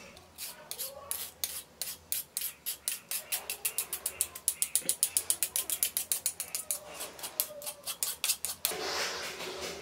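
Metal spoon scraping wet chia seeds and beetroot against a fine stainless-steel mesh strainer: a fast run of short rasping strokes, about four to six a second, quickest around the middle, giving way to a steady hiss near the end.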